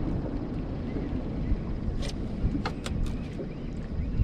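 Wind buffeting the microphone in a low, steady rumble, with a few sharp clicks about two to three seconds in.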